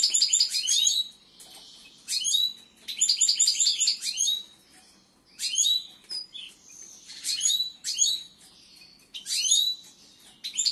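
Caged European goldfinches singing: bursts of fast, bright twittering and chirping notes, each about a second long, repeated with short pauses between them.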